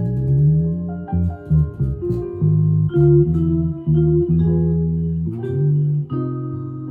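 Headless Cort electric guitar with flatwound strings playing a single-note jazz line of mostly low, held notes, with a note sliding up at the start.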